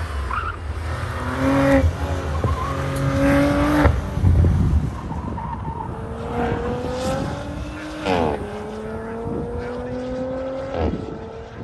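Audi B9 RS4's twin-turbo V6 pulling hard up through the gears, its revs climbing steadily and dropping sharply at quick upshifts about four, eight and eleven seconds in. It grows fainter near the end as the car draws away.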